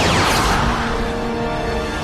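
Anime sound-effect clip: a falling whoosh, then a dark, sustained chord of ominous music.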